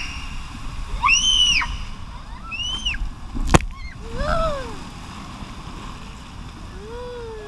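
A child's high-pitched screams, rising and falling, as an inner tube rushes down an enclosed water slide over steady rushing water. A sharp knock about three and a half seconds in as the tube shoots out into the splash pool, then a couple of lower calls.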